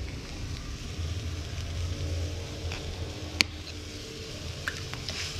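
Food cooking on a stove: a steady low rumble with faint sizzling, broken by one sharp tap about three and a half seconds in and a few lighter ticks near the end.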